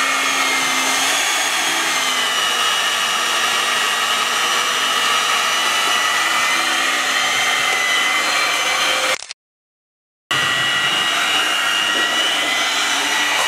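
Electric hand mixer running steadily with a high whine, its beaters whisking fritter batter in a plastic bowl. The sound breaks off completely for about a second about two-thirds of the way through, then carries on.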